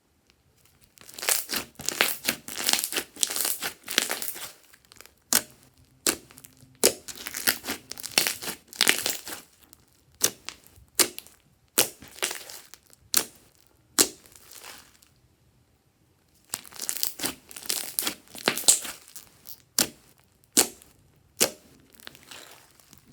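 Glossy slime being squeezed, stretched and folded by hand, giving bursts of sticky crackling pops and clicks with single sharper pops between them and a short pause about two-thirds through.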